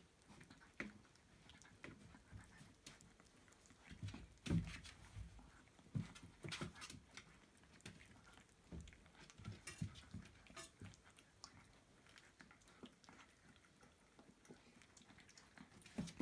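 Siberian husky puppies licking and suckling on a person's fingers: soft, irregular wet smacking and clicking, with a louder thump about four and a half seconds in.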